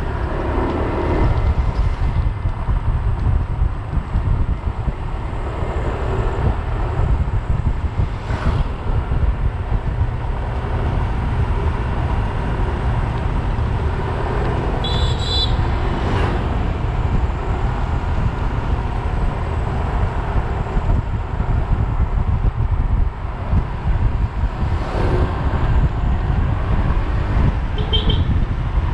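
Wind buffeting the microphone of a camera carried on a bicycle during a downhill ride, with tyre noise on the concrete road. A brief high chirping sound comes about halfway through and another near the end.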